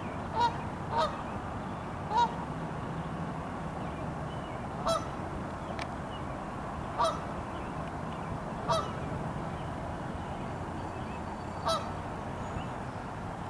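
Canada geese honking: about seven short, sharp honks at irregular intervals, a few seconds apart after the first three come in quick succession.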